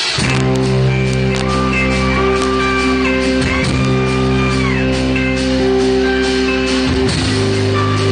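Live rock band playing: loud electric guitar chords over drums and cymbals, kicking in suddenly at the start, with the chord changing about seven seconds in.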